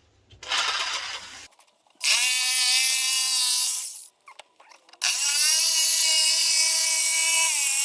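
Jigsaw cutting 3 mm clear acrylic (Perspex) sheet: two runs of a steady, high motor whine over the blade's rasp, the first about two seconds long and the second starting about five seconds in. A short scraping noise comes just before them.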